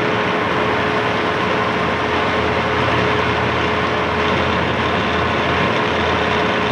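Monarch 20-CM heavy-pattern engine lathe running under power: a steady mechanical hum from its 20 HP drive motor and geared headstock, with a steady whine through it.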